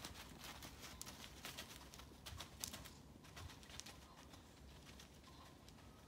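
Faint quick rustling and patter of small deer running through dry leaf litter, thinning out after about three seconds, with a bird calling faintly.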